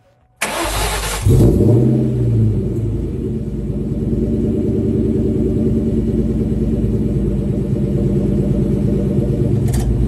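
Ford SVT Mustang Cobra's V8 cranked and catching about a second in, revving briefly and then settling into a steady idle, heard from beneath the car by the rear differential and exhaust pipes.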